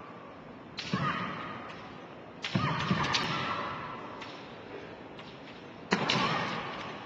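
Kendo fencers' kiai shouts, three of them, each opening with a sharp hit and ringing on in a large hall as it fades. The hits are bamboo shinai strikes and stamping attack steps.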